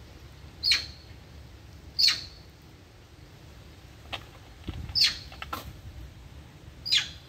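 Four short, high-pitched animal chirps, each falling sharply in pitch, spaced one to two seconds apart, with a few faint clicks between them.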